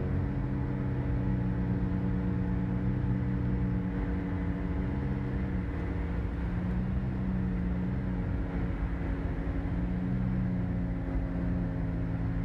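Car engine and road noise heard inside the cabin while driving: a steady low drone whose pitch drifts slightly up and down as the engine speed changes.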